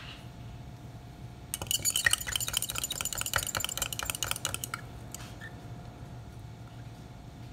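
A stirring rod rattling quickly against the inside of a glass beaker of sludge: a fast run of glassy clinks, several a second, starting about a second and a half in and stopping after about three seconds.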